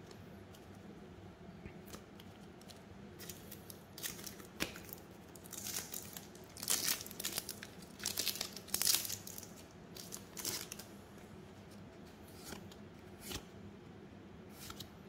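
A trading card pack wrapper being torn open and crinkled: short, irregular ripping and rustling sounds, most of them in the middle stretch.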